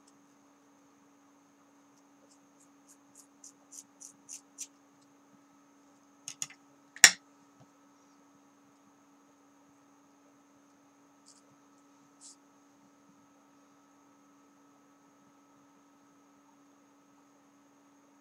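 Scissors snipping through a small tuft of hair: a quick run of small crisp clicks growing louder about three seconds in, more about six seconds in, then one sharp, louder click. A faint steady electrical hum runs underneath.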